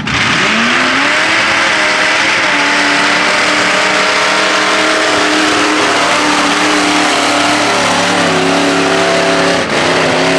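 Lifted Ford pickup's engine under heavy load pulling a giant tractor tire: it revs up about half a second in, then runs hard at high revs, its pitch dipping slightly a couple of times.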